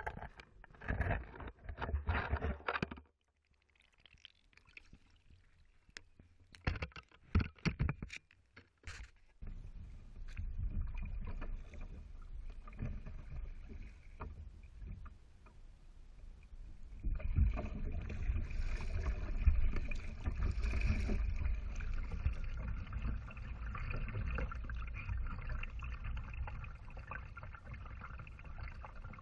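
Water splashing and lapping against a moving kayak's hull. It comes in uneven bursts with short gaps for the first several seconds, then becomes a continuous wash with a low rumble from about ten seconds in, louder again in the second half.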